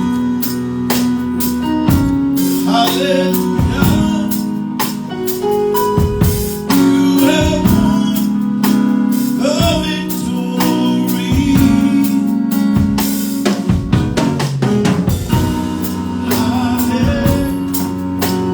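Live band playing during a sound check: a drum kit with snare and kick drum hits over sustained chords, with a voice faintly in the mix.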